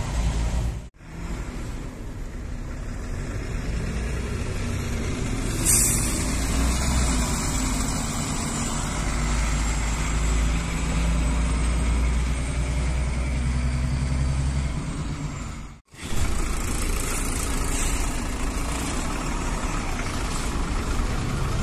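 Diesel city buses running at low speed and idling, a steady low engine rumble. There is a short hiss about six seconds in, and the sound cuts out briefly twice.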